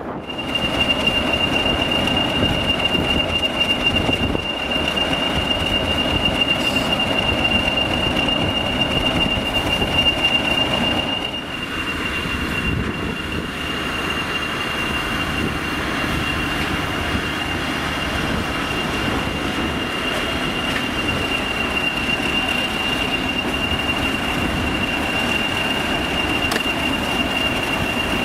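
Colas Rail track tamper running along the line on its engine, with a steady high-pitched squeal held on one note throughout. The running sound eases a little about twelve seconds in.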